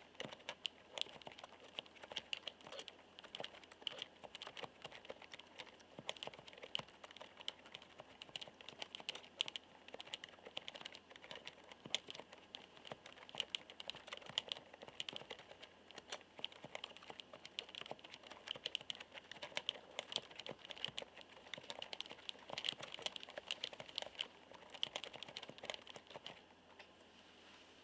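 Typing on a μTRON keyboard with electrostatic capacitive no-contact switches: a fast, continuous run of soft, rounded keystroke clicks (the 'kotokoto' clack of this switch type), dying away near the end.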